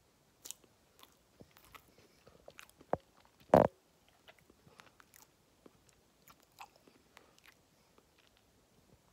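A person biting into and chewing a graham cracker softened with sparkling water, with small wet clicks and mouth noises. There is one loud short knock about three and a half seconds in.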